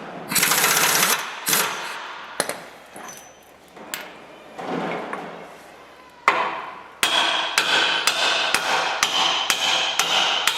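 Hammer blows on the steel bolt and pivot pin of a machine's swinging arm, driving it out. A short burst of noise comes about half a second in, then a few scattered knocks. From about two-thirds of the way through, quick repeated strikes land about three a second, each ringing like struck metal.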